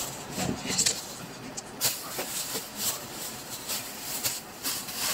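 Thin plastic carrier bag being handled, crinkling and rustling in short, irregular crackles.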